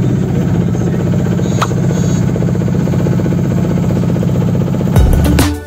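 Boat engine running steadily under way, a dense even drone mixed with the rush of water along the hull. About five seconds in it cuts abruptly to music.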